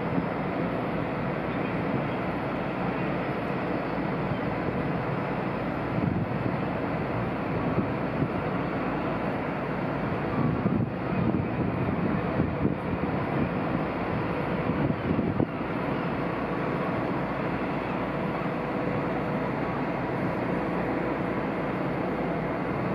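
Large cruise ship under way at close range: a steady low rumble of its machinery with churning water, swelling unevenly for several seconds in the middle.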